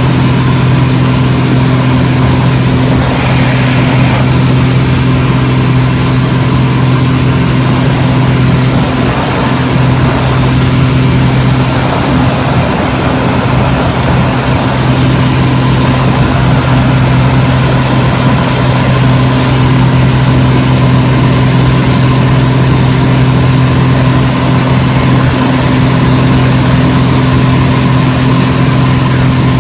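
Pitts aerobatic biplane's piston engine and propeller running steadily in flight, heard loud from the cockpit with wind noise. The drone's pitch wavers briefly around the middle, then settles again.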